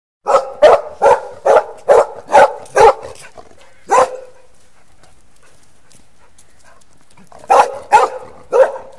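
A dog barking in quick runs: about seven sharp barks in a row, a single bark, a pause of about three seconds, then another run of about four barks near the end.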